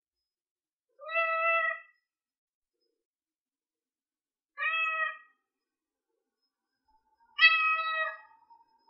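A domestic cat meowing three times, each meow about a second or less, with silent gaps of about three seconds between them.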